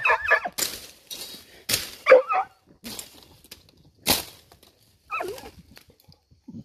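Dog digging and sniffing at an armadillo burrow, with a few sharp scuffs of dirt and short whines between them.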